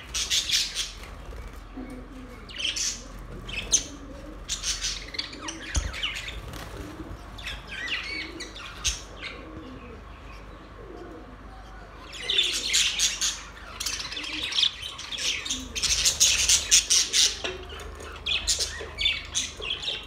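A flock of budgerigars chirping and warbling in quick overlapping bursts, busiest about twelve seconds in and again a few seconds later.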